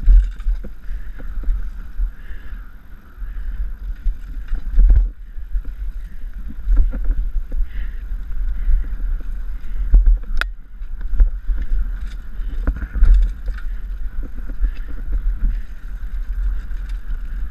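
Mountain bike riding fast down a bumpy dirt trail, heard from a bike-mounted or rider-worn camera: heavy wind rumble on the microphone with irregular rattles and thumps from the bike over bumps and roots, including a sharp knock about ten seconds in.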